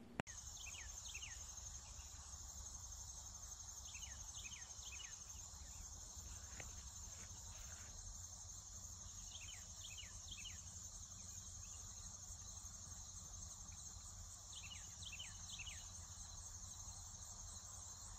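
Faint, steady outdoor insect chorus: a continuous high trill of late-summer crickets. Clusters of three or four short falling bird chirps come a few times over it, with a low wind rumble underneath and a sharp click at the very start.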